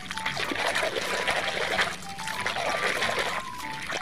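Water sloshing and splashing as a plastic toy is swished and scrubbed by hand in foamy soapy water, over background music of a simple melody of short high tones.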